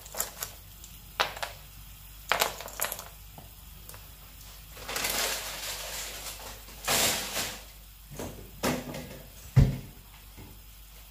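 Kitchen handling noises: a few light clicks and knocks in the first three seconds, two longer scraping noises of about a second each in the middle, and one heavy thump near the end.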